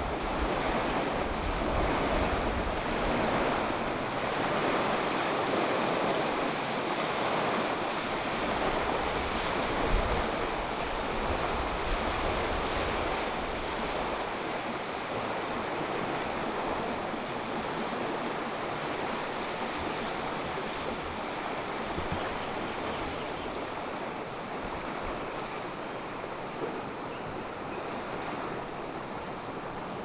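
Steady wash of wind and small waves on a sandy shore, with no tones or distinct events. Wind gusts rumble on the microphone through the first half, strongest about ten seconds in.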